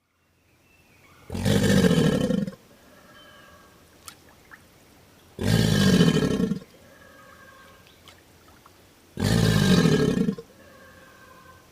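A large animal's roar, three times about four seconds apart, each about a second long.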